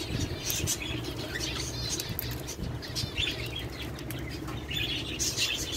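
Cockatiels chirping in short, scattered calls, with brief flutters of wings, over a steady low hum.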